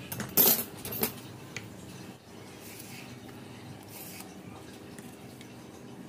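Two sharp metallic clattering knocks about half a second apart, then a faint click, as a hand tool is handled on a workbench, over a low steady hum.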